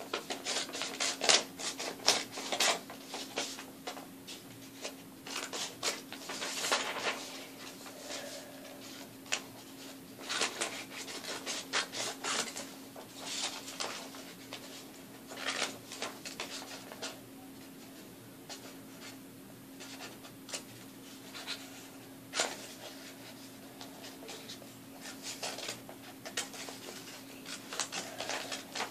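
Scissors cutting out a paper shape: irregular snips and paper rustling in short runs, with a few quieter pauses.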